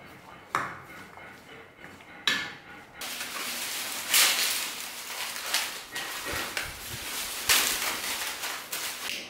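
A metal spoon clinks and scrapes against a steel mixing bowl a few times as diced sweet potato and red beans are stirred. About three seconds in, loud, continuous rustling and crackling of dry brushwood kindling being handled and broken up to feed a wood-fired stove takes over.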